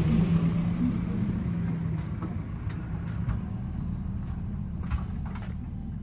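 A vehicle's engine running with a steady low hum that fades away over the seconds, as if it is moving off, with a few faint clicks.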